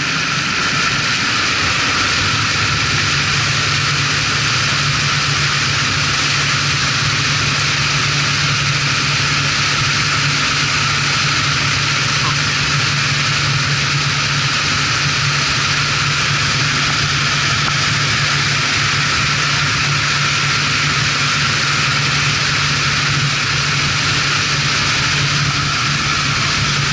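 Wakeboat underway: the Indmar Monsoon 350 small-block V8 inboard hums steadily under a loud, even rush of water and wind. The engine note is subdued because the exhaust is routed down into the water by a fresh-air exhaust, so more of the water and the engine bay is heard than the exhaust.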